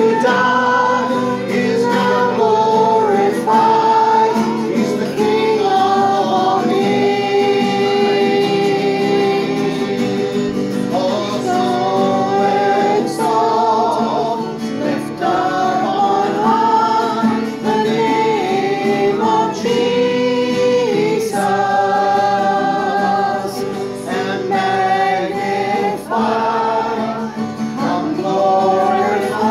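A group of men and women singing a worship song together in unison, accompanied by a strummed acoustic guitar.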